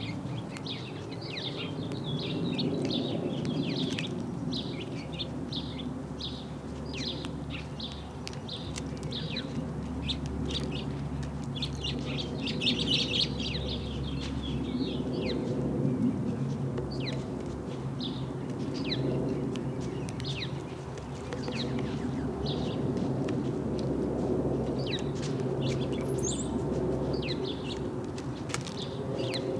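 House sparrows chirping, with short, rapid, repeated chirps throughout. A steady low rumble runs underneath.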